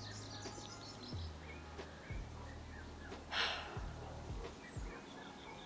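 Garden ambience: a few faint bird chirps over a low steady hum, and a short breathy exhale about three and a half seconds in.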